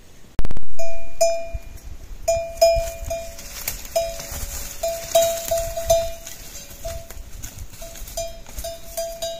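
Livestock bells on a moving flock clanking at uneven intervals: short ringing strikes of one metallic tone, dozens of them. They follow a single loud knock just under half a second in.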